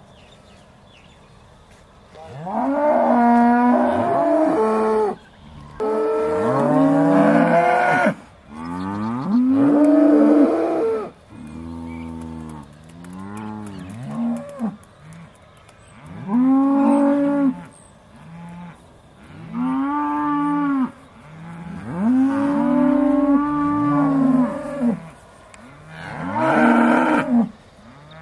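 Aussie Red dairy cows mooing again and again, about ten long calls that each rise and fall in pitch, some louder and some fainter, from cows waiting to be milked.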